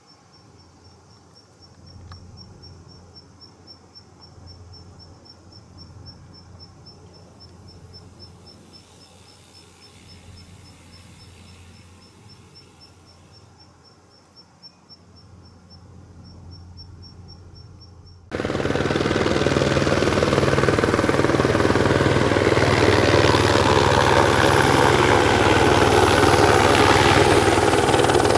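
Aerospatiale AS350B Ecureuil helicopter on its landing approach. At first it is a faint, distant rotor thrum under a steady, rapid ticking chirp of an insect. About 18 seconds in, the sound jumps abruptly to the loud close beat of the main rotor, with a thin high whine from its turboshaft engine.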